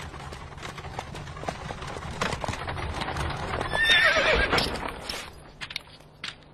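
Horse hooves clip-clopping, with a horse neighing once about four seconds in.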